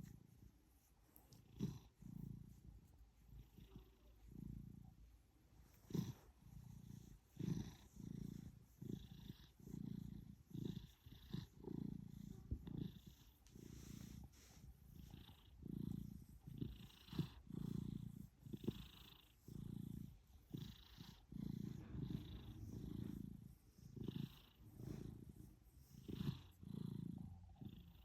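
A domestic cat snoring softly: a faint, low rasp on each breath, repeating about once a second.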